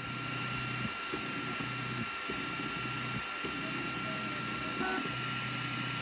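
FlashForge Adventurer 5M 3D printer running its automatic calibration: its fans hiss steadily with a thin whine, while a low motor hum comes and goes in runs of about half a second to a second and a half with short breaks between.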